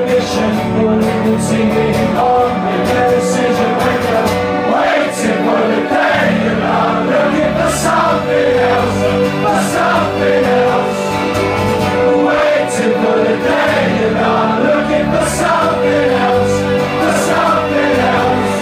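A live song played on an acoustic guitar and an electric guitar, with a man singing.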